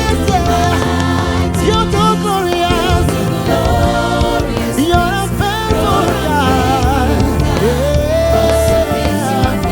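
Gospel worship music: a band playing with voices singing wordless runs and held, bending notes over it.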